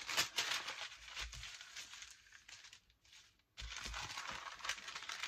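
Fibre paper and brown paper rustling and crinkling as they are handled, folded over and smoothed down by hand. The sound is a run of soft, irregular crackles that stops for a moment just past the middle, then starts again.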